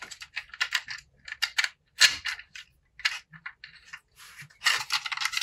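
Short plastic clicks and clacks of a 3D-printed blaster's trigger, trigger link and pusher being worked back and forth by hand, a scattered run of clicks that comes faster near the end. The parts are being tested for free movement, and they are moving without much resistance.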